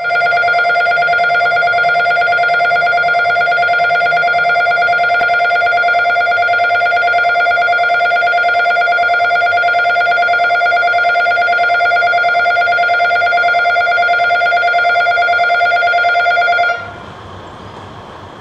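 Electric station departure bell ringing without a break for about 17 seconds, then cutting off suddenly, signalling that the train is about to leave. After it stops, the diesel railcar's engine is left idling quietly.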